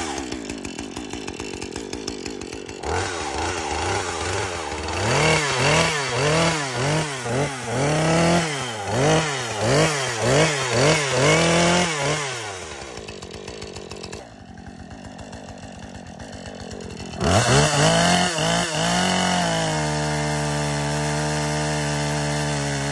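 Petrol chainsaw engine blipped up and down about once a second, then dropping to a quieter idle. It revs up again and holds a steady high speed as it cuts into a fallen tree trunk near the end.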